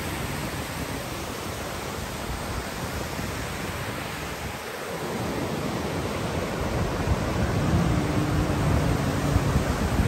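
Ocean surf breaking and washing in, a steady rushing noise, with wind on the microphone. A faint low hum joins near the end.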